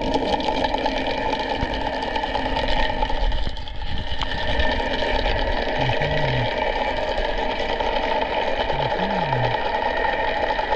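Dolphin Nautilus CC Plus robotic pool cleaner running steadily, its pump motor giving a constant mechanical hum.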